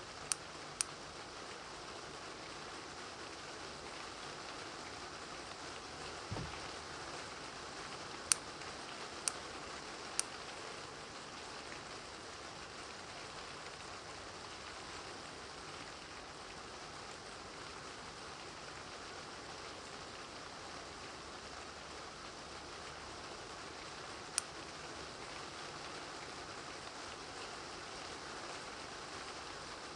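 Steady rain falling, a soft even hiss. A few sharp ticks sound through it, two right at the start and three about eight to ten seconds in, with one dull low thud about six seconds in.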